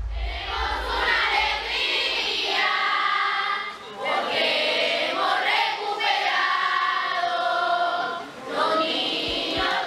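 A group of children's and women's voices singing together unaccompanied, an alabao, the traditional Afro-Colombian chant of the Pacific coast, in long held phrases with short breaks about four and eight seconds in. A low rumble fades out in the first second or so.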